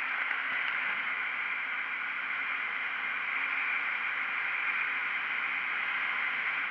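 Steady rush of wind and road noise from a KTM Duke 125 motorcycle riding along an open road at speed, with no distinct engine note standing out.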